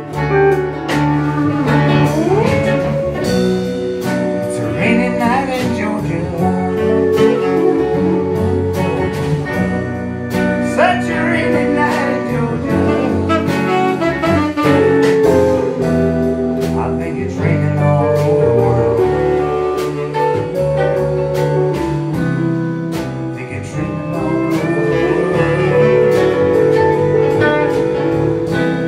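Live band music: hollow-body and electric guitars, pedal steel guitar, upright bass and drums playing a slow soul-country tune, with notes that slide in pitch.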